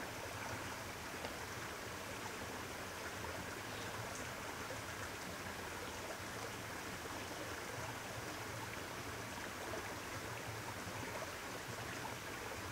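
A small creek flowing over flat rock ledges: a steady, soft rush of water.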